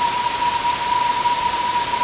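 Waterfall running: a steady, even rush of falling water, with a thin steady tone held at one pitch throughout.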